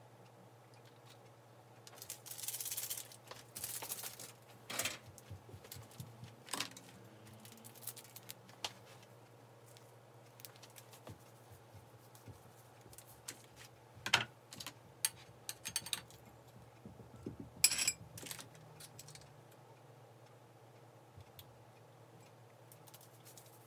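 Plastic seasoning sachets crinkling and kitchen scissors snipping, with scattered clicks and taps of handling over a low steady hum. The sounds are sped up to double speed.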